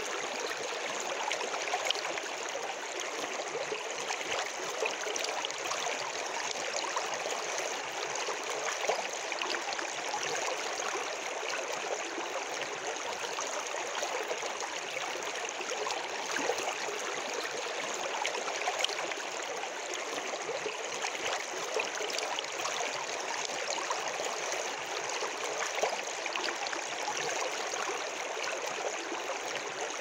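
Small rocky river flowing through a gorge: a steady rush of water, flecked throughout with small gurgles and splashes.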